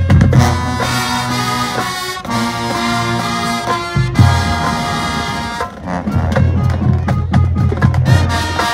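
High school marching band playing: brass holding chords over a low bass line, with drum hits coming through more strongly in the second half.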